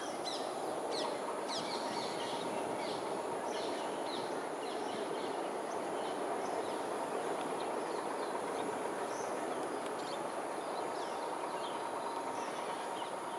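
Many short, high chirps of small birds, several a second, over a steady background rush.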